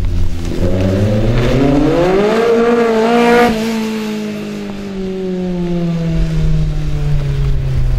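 Small rear-engined racing car's engine revving hard under acceleration, its pitch climbing for about three seconds, then dropping back and falling away steadily as the car drives off.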